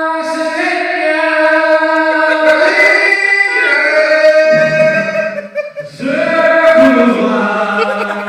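Singing in long held notes, with a short break about five and a half seconds in.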